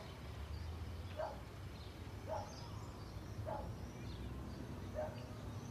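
Birds calling in the background: one short call repeats about once a second, with thin higher chirps between, over a faint steady low hum.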